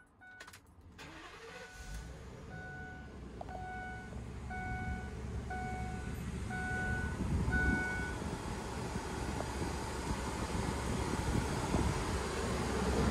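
Ford E450 box truck's engine running at idle, a low rumble that grows louder over the first few seconds. A dashboard warning chime beeps repeatedly over it until about eight seconds in.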